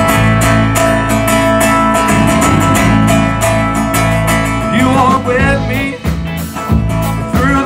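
Live band playing: drums, bass, and electric and acoustic guitars, amplified through a PA, with a steady beat. A gliding melody line comes in about five seconds in.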